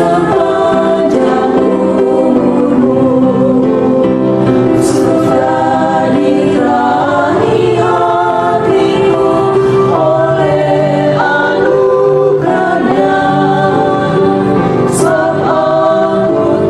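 A choir singing a gospel praise song in harmony, several voices holding and changing chords together.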